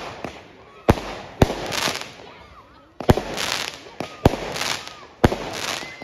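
Aerial fireworks bursting overhead: about five sharp bangs spaced irregularly, each followed by a second or so of hissing crackle as the burst burns out.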